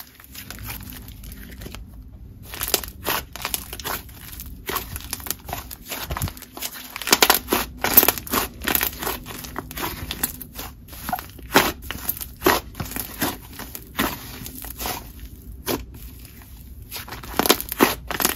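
Hands kneading, squeezing and pressing a fluffy cloud cream slime, which gives off an irregular run of quick crackles and sizzles as the air trapped in it pops. The crackles come in louder clusters now and then as the slime is squashed.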